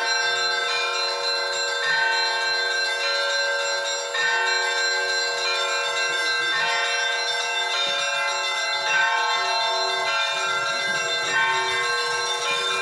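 Orthodox church bells ringing: several bells of different pitches hum together, with a fresh strike roughly every two seconds.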